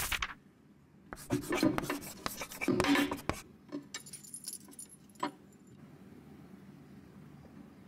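Cloth rubbing over a glass tabletop as it is wiped, with a flurry of light clinks and rustles in the first few seconds and a single click a little after five seconds, then only faint background.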